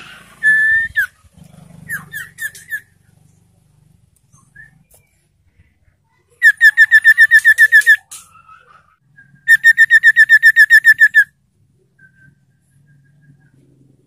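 An iora (sirtu) singing close by. A few short whistled notes come first, then two fast, loud trills of even repeated notes, about eight a second, each lasting a second and a half or so.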